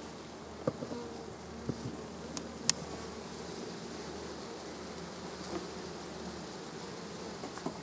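Honey bees buzzing steadily around an open hive, a dense wavering hum. A few sharp clicks come in the first three seconds.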